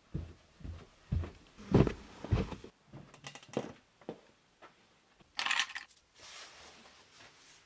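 Footsteps coming down carpeted stairs, about five heavy thuds half a second apart, then lighter steps and small clicks. About five and a half seconds in, a short rustle of a padded nylon jacket being pulled off a coat hook.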